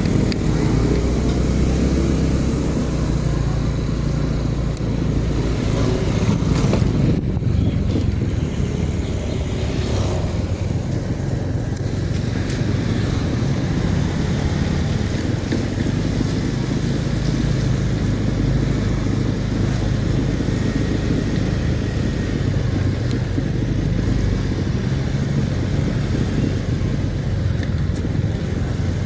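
Motorcycle engines running at low riding speed: a steady low rumble with road noise.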